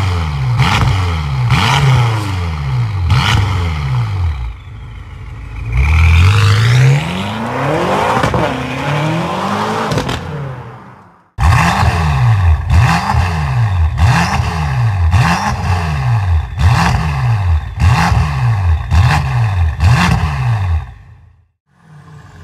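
BMW M5 (F10) twin-turbo V8 revved through an aftermarket stainless steel valved cat-back exhaust: a string of sharp blips, each rising and falling, then a longer drawn-out rev. After an abrupt cut comes another run of quick blips about one a second, fading out near the end.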